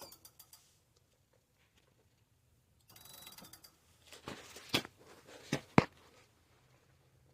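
Ariel Rider Kepler e-bike drivetrain being turned by the crank, giving ratcheting mechanical clicks: a short spell at the start, then another from about three seconds in that ends in a few sharp knocks, the loudest about six seconds in. The bike has a squeak at the crank when pedalled or when the chain is run backward.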